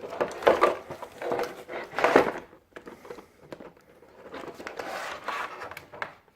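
Headset packaging being handled: rustling and knocking of plastic and cardboard, loudest about half a second and two seconds in, then softer.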